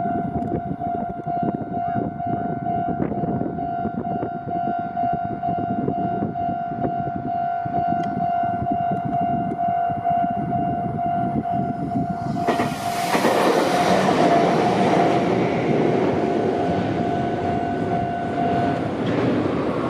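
Japanese level-crossing warning bell ringing steadily over the rumble of a train running across the crossing. About twelve seconds in, a louder rushing noise sets in as a train passes close, and the bell stops near the end.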